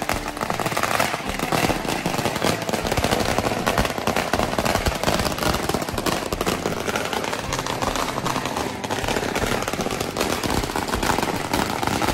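A long string of Chinese firecrackers going off in a continuous, rapid crackle of bangs.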